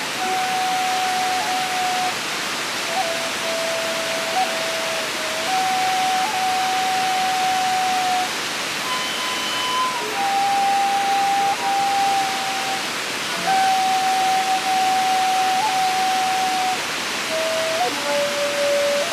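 Shakuhachi duet playing slow, long-held notes with small pitch bends at the start of each note, over the steady rush of a waterfall.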